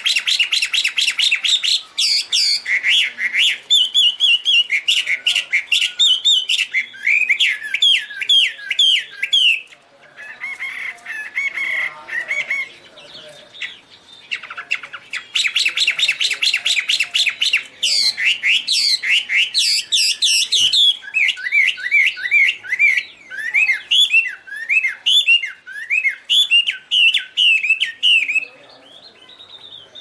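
Chinese hwamei singing a loud, varied song: fast trills of rapidly repeated notes alternate with runs of slurred, whistled notes, with a softer, quieter passage about a third of the way in.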